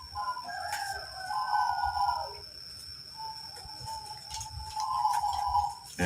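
Rooster crowing: one long crow at the start and another from a little past halfway, with faint clicks of handling in between.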